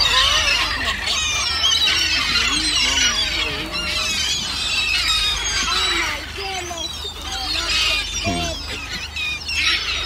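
A crowd of gulls squealing and calling over one another as bread is thrown to them, the calls short, high and overlapping.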